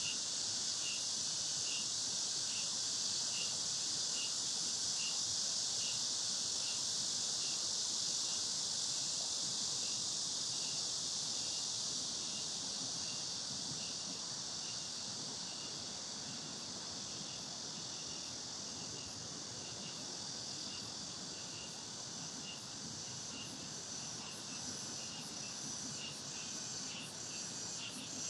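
Steady, dense high buzz of cicadas in the trees, with a fainter, lower chirp pulsing about one and a half times a second beneath it. The buzz eases off a little from about halfway through.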